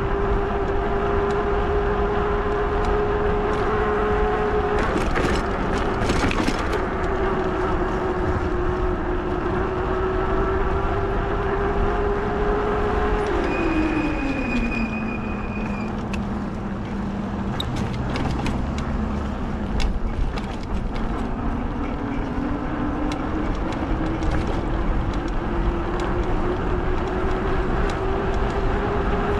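Fat-tire e-bike motor whining steadily under way, with tyre and wind rumble underneath. About halfway through the whine drops in pitch as the bike slows, and a brief high squeal sounds. Then the whine climbs back as it picks up speed again.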